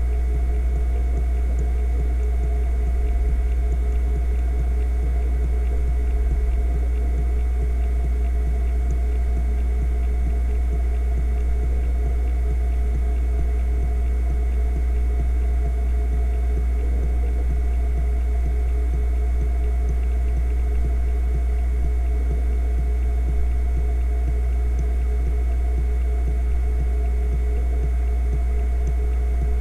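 Fujitsu MEA3320BT 3.5-inch SATA hard drive under a read/write benchmark: its 3,600 rpm spindle gives a steady low 60 Hz hum, under fast, unbroken chatter of the heads seeking.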